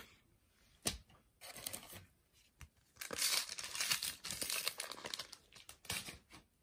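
A Panini Adrenalyn XL card packet being torn open and its wrapper crinkled, in stretches of crisp rustling, the longest from about halfway through to near the end, after a single sharp tap just under a second in.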